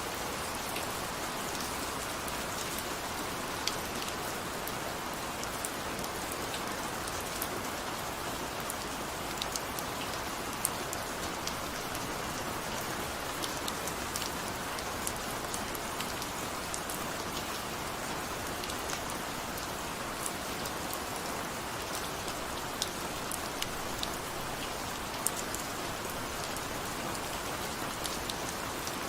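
Steady rainfall: a continuous hiss of rain with scattered sharper drops ticking on a surface.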